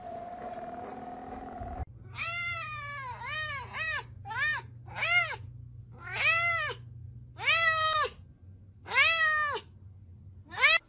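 A percussive massage gun's motor hums steadily for the first couple of seconds. Then a long-haired cat meows about nine times in a row, each meow rising and then falling in pitch.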